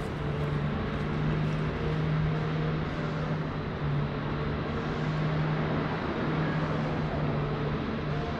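Steady motor-vehicle noise: a low engine hum that drops out briefly now and then, over even road or traffic rumble.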